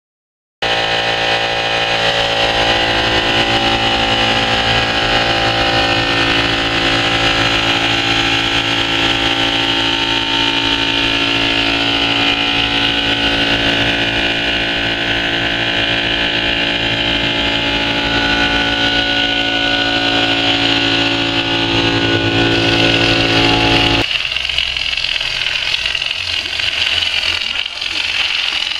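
A BIGTEX texture and mortar spraying machine running, a loud steady machine drone with many held tones. About 24 seconds in it cuts to a rougher, hissier machine sound.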